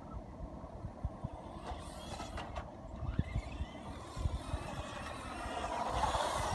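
ECX Amp DB RC buggy's brushed electric motor whining as the car drives, rising in pitch about a third of the way in and growing louder toward the end, over a low rumble with scattered knocks.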